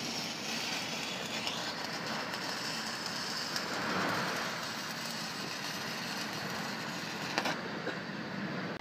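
Stick (arc) welding on a steel fence post: the electrode's arc makes a steady hiss that cuts off about seven and a half seconds in as the weld stops.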